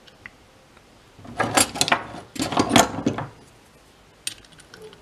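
Small brass and metal parts of a garden ball valve being screwed together by hand: two spells of rapid metallic scraping and clicking about a second and a half and three seconds in, then a single sharp click near the end.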